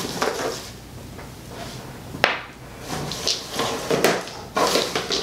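Small empty essential-oil vials being taken out and handled. Two sharp clicks about two and about four seconds in, with rustling and light knocks between them.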